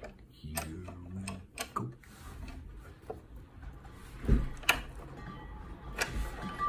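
Hand-operated arbor press being worked: scattered metal clicks and knocks from its rack-and-pinion ram and lever as it forces a Teflon-wrapped coin ring down into a tapered compression sleeve, with two louder knocks about four and a half seconds in.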